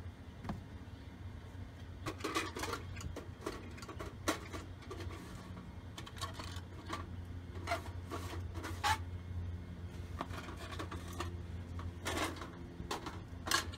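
Irregular clicks, taps and rubbing from hands working on a car's plastic and vinyl door trim panel as it is lined up, over a steady low hum.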